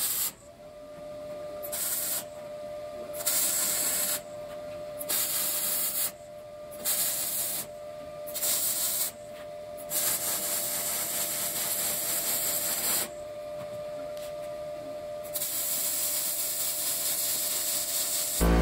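MIG welding arc crackling on steel in a series of short welds, each under a second, with one longer weld of about three seconds near the middle. A faint steady tone runs underneath.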